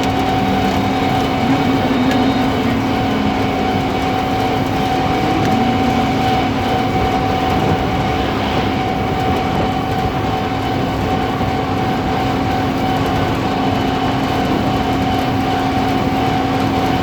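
Malkit 997 combine harvester running steadily: a continuous machine drone with a steady, unchanging hum.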